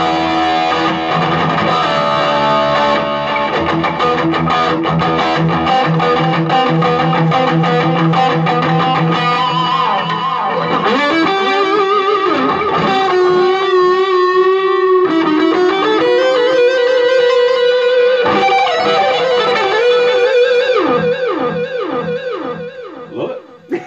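Electric guitar played through a 15-watt Marshall MG combo amp: a lead passage of quick picked notes, then held notes with wide vibrato and a long sustained note, trailing off near the end.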